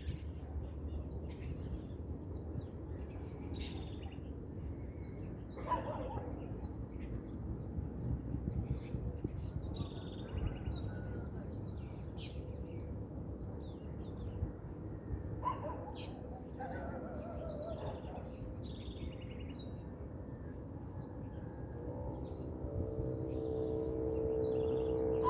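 Dawn chorus of many birds chirping and calling over a steady low rumble. Near the end a steady pitched hum with several tones comes in and grows louder.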